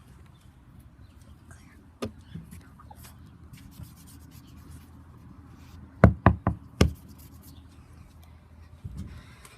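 Four quick, loud knocks in a row about six seconds in, after a single sharper click about two seconds in.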